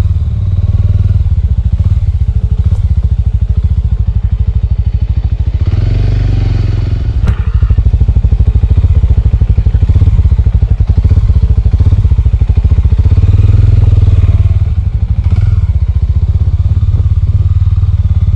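Small Suzuki motorcycle's engine running as the bike rides slowly along a rutted dirt track, with a few knocks from the bike over the bumps. The engine gets louder from about eight seconds in and eases off again near fifteen seconds.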